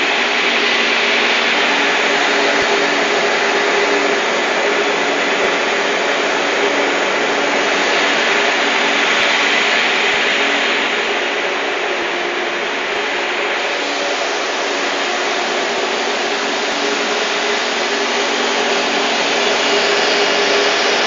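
Industrial processing machinery running steadily: a loud, even whir with a faint low hum underneath, changing little throughout.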